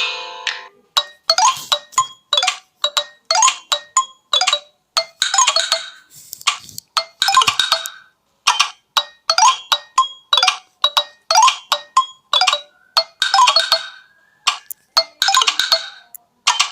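A Nokia Lumia 925 stock ringtone: a run of short, bright mallet-like notes, about two to three a second, that stops suddenly at the end.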